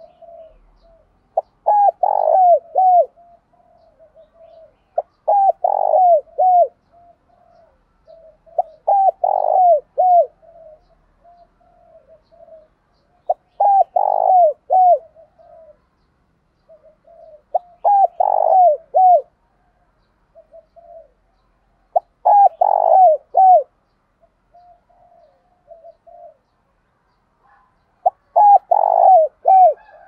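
Spotted dove, a caged decoy bird, cooing its calling song. Seven loud phrases come about four seconds apart, each a short run of three or four coos, with softer single coos between.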